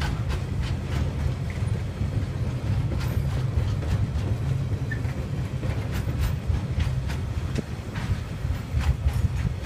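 Container freight train wagons rolling past in a steady low rumble, with wheels clacking over the rail joints now and then.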